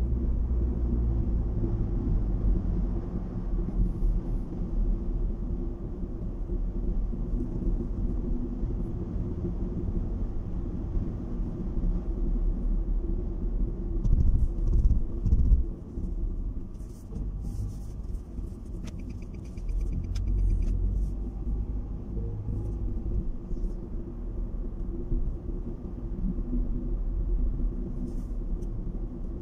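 Car cabin noise while driving: a steady low rumble of engine and tyres on the road, swelling briefly about halfway through.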